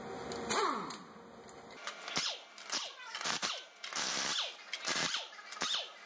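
Impact wrench triggered in a string of short bursts, each one spinning up and winding down in pitch, mostly from about two seconds in, as it is readied to break loose the wheel's lug nuts.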